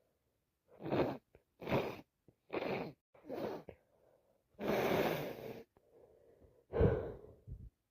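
A congested person sniffing through a blocked nose: four short sniffs about a second apart, then a longer one lasting about a second, and a sharper, heavier burst near the end.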